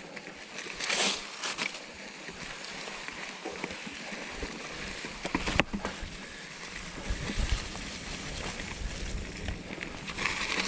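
2016 Norco Torrent plus-tyre hardtail mountain bike ridden on a trail, with steady rolling noise and small rattles and clicks. A sharp knock comes about five and a half seconds in, and a low rumble sets in around the halfway point.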